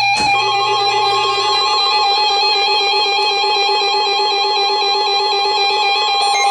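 Emergency Alert System attention signal: two steady tones sounded together (853 and 960 Hz), loud and unbroken, announcing an emergency alert message. It starts with a short knock.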